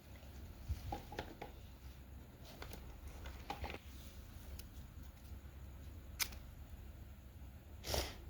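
Small plastic toy pieces and packaging being handled: scattered light clicks and taps, with a brief louder noise near the end.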